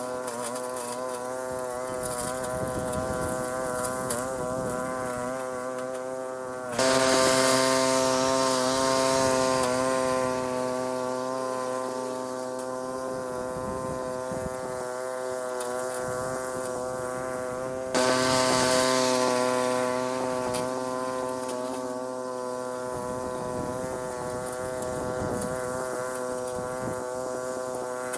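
Briggs & Stratton 550-series lawn mower engine running steadily at a constant speed while mowing at a distance. It turns suddenly louder about seven seconds in and again about eighteen seconds in, fading back each time.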